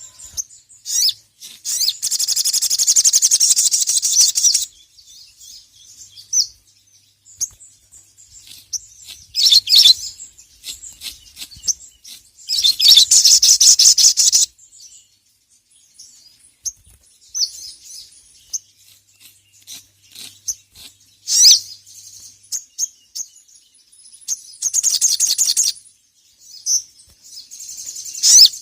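Sogon (sogok ontong), a sunbird, singing: high-pitched rapid chattering trills of about two seconds each, three times, between short sharp chirps.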